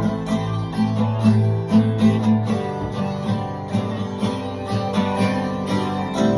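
Music: an acoustic guitar strumming chords in a steady rhythm, with no singing.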